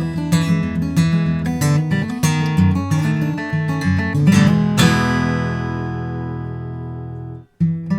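A 2013 Gibson J-35 acoustic guitar, with a Sitka spruce top and mahogany back, being played: a run of picked notes and chords, then one chord left to ring out for a couple of seconds. The ringing chord cuts off suddenly, and the playing starts again just before the end.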